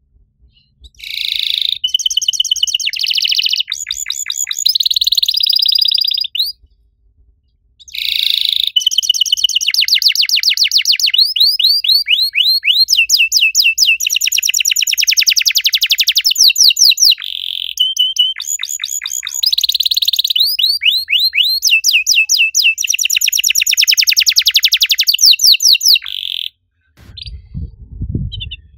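Domestic canary singing long, fast trills and rolls of rapid repeated chirps and sweeping notes, breaking off briefly about six and a half seconds in and stopping shortly before the end. A brief low rumble follows near the end.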